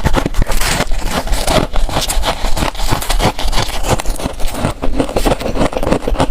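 Freezer frost being crunched and scraped close to the microphone: a dense, unbroken run of small crackles and crunches.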